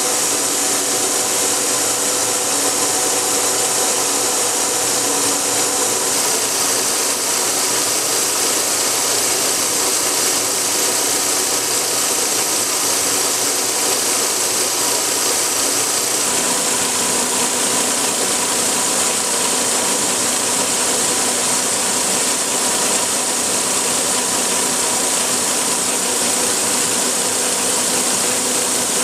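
K&T milling machine running a 5-inch face mill across the top of a steel railroad rail on a light cut of about 30 thousandths at 2.5 inches a minute. Steady cutting noise with a constant gear whine from the machine.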